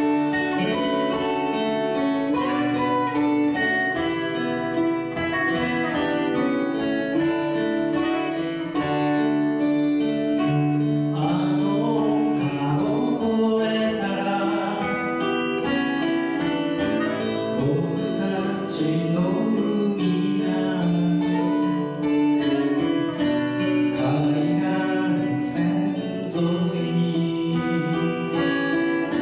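Live acoustic folk music: acoustic guitars playing, with a singing voice.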